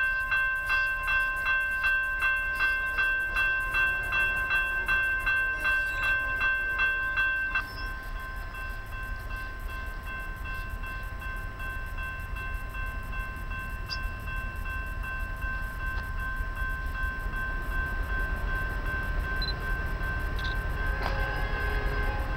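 Railroad grade-crossing warning bell ringing about twice a second, then stopping abruptly about seven and a half seconds in. After that, a low steady rumble of an approaching BNSF freight train, still distant, with wind noise.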